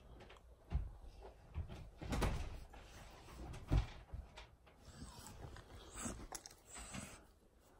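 Irregular thumps and clattering from outside the room, made by two miniature bull terriers romping, with the loudest knock a little under four seconds in.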